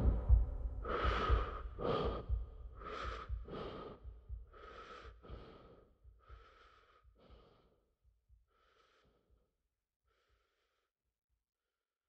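A person breathing heavily in slow in-and-out breaths that grow steadily fainter and die away before the end.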